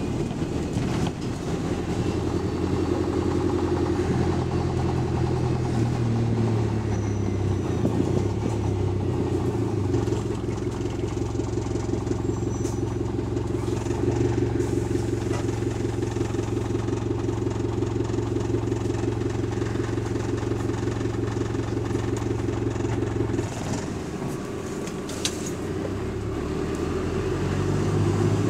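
The engine of bus WS65 pulling along under way, heard from inside the bus: a steady drone that shifts pitch in steps early on, holds steady, drops back for a couple of seconds and then rises again near the end as the bus picks up speed.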